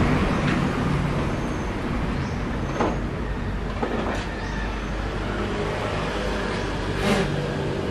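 Steady rushing machine noise with a faint low hum, easing slightly in the first couple of seconds, with a few light knocks of handling about three, four and seven seconds in.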